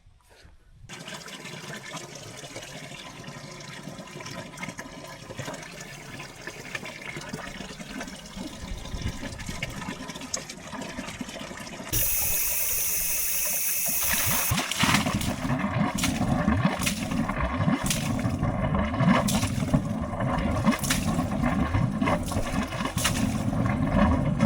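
Water from a garden hose pushed up a blocked kitchen drain pipe, running steadily. About halfway a sharp hiss sounds for two or three seconds, then the water runs louder with scattered knocks as the drain clears.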